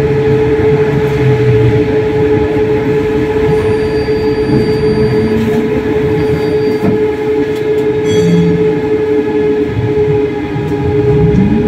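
Moderus Beta MF20AC tram running, with a steady whine over its running noise. Near the end a second tone rises in pitch.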